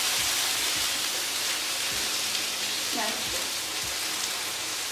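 Fatty ground beef sizzling on a hot electric griddle just after the large patty has been flipped: a loud, steady frying hiss that eases off slowly.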